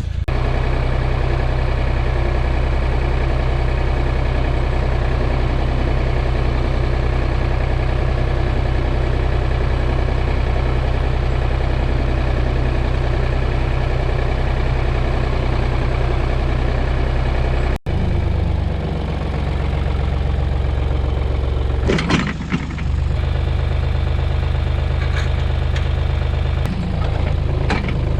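An engine running steadily at an even speed. It breaks off for an instant about two-thirds of the way through, and there are two short knocks near the end.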